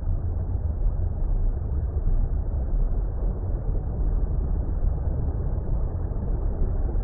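Steady, muffled water rumble: an even deep-bass noise with no highs above a dull hiss, unchanging throughout.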